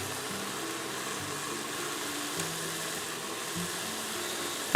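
Chicken and onion pieces sizzling in melted butter in an Instant Pot on sauté mode, a steady hiss.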